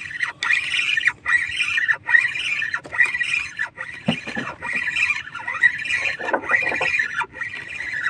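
Spinning reel being cranked to bring in a hooked fish: a squeaky whirr in steady repeated pulses, one to each turn of the handle.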